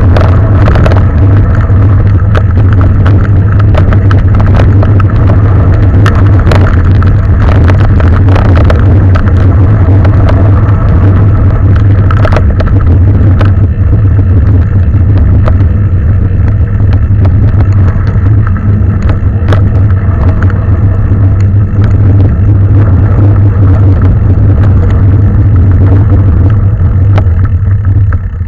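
Mountain bike being ridden fast along a trail: heavy wind rush buffeting the microphone, with frequent clicks and rattles of the bike over rough ground.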